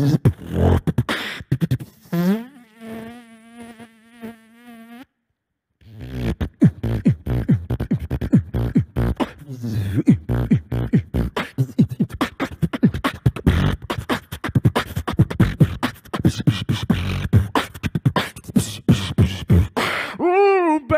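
Beatboxing into a handheld microphone: fast mouth-made drum hits and clicks. About two seconds in, a rising then wavering pitched hum takes over, and the sound cuts out completely for a moment around five seconds. It is followed by a dense, fast beat. Near the end a wavering sung tone begins.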